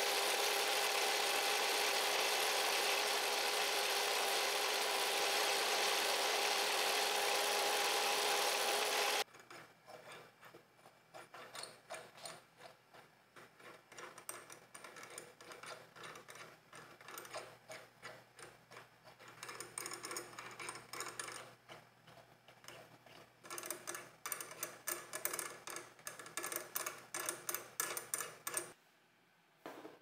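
Sherline milling machine spindle running steadily while a small drill bores mounting holes in an aluminium crankcase block; it stops suddenly about nine seconds in. It is followed by bursts of fast ticking and scraping as a small hand tap is turned into the drilled holes by hand.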